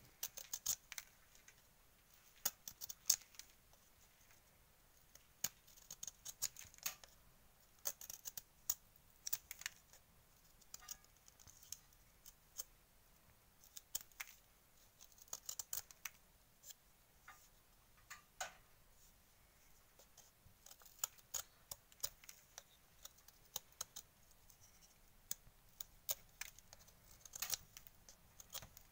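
Knife blade shaving and scraping a dry reed in short, irregular strokes, faint and scratchy, as the nib of a reed calligraphy pen (qalam) is hollowed out to a rounded shape.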